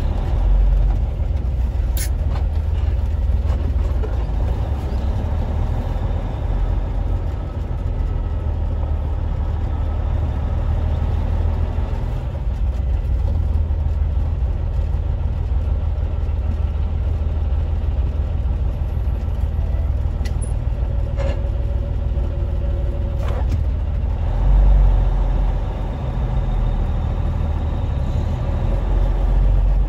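Semi truck's diesel engine running, heard inside the cab: a steady low rumble. A few sharp clicks come through it, and the rumble swells briefly about 25 seconds in.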